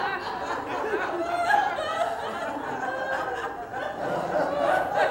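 An audience laughing and chuckling together after a joke's punchline.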